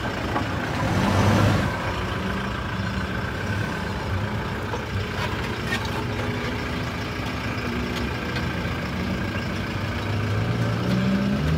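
A 4x4 SUV's engine running at low revs as it crawls slowly over uneven off-road ground. There is a louder, rougher stretch about a second in, and the revs rise near the end.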